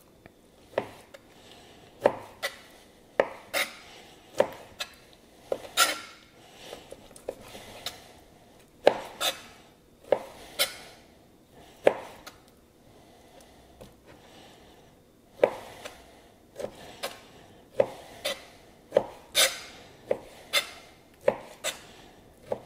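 Firebox folding chef knife cutting raw pork into cubes on a plastic cutting board: irregular sharp knocks as the blade strikes the board, one or two a second, with a pause of about three seconds in the middle.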